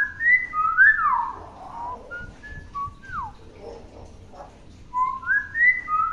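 Common hill myna whistling: a quick run of clear, gliding whistles at the start, a few single whistles in the middle with one sliding down in pitch, then another run near the end.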